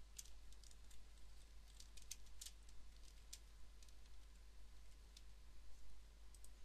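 Faint, irregular keystrokes on a computer keyboard as a short string of characters is typed, most of them in the first three seconds or so and only a few scattered taps after that.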